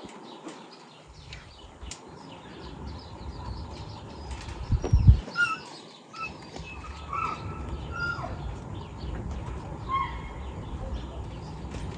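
Birds chirping in the background, short high calls scattered through the middle, over a low rumble with faint clicks; a brief low thump about five seconds in is the loudest sound.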